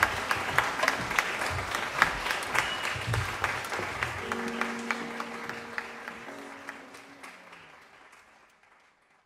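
Concert audience applauding, the clapping thinning and fading away to near silence near the end.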